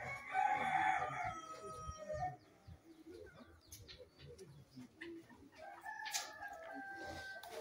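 A rooster crows loudly in the first second and a half, and another long chicken call comes near the end.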